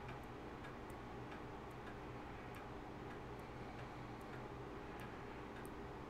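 Faint, regular ticking, a little more than one tick a second, over a low steady hum.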